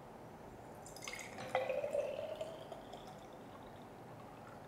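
Amla (Indian gooseberry) juice poured from a glass jug into a small Duran Youtility glass bottle. The trickling pour is strongest from about one to three seconds in, with a faint tone that rises slightly as it goes, then it tails off to drips.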